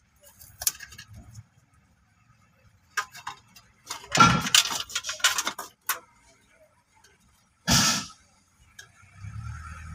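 Hands handling a car stereo's wiring harness under a stripped dashboard: scattered clicks and rustles of wires, connectors and plastic, thickest about four to six seconds in, with one louder rustle near the end. The wires are being worked at a splice to find where the stereo's power supply is lost.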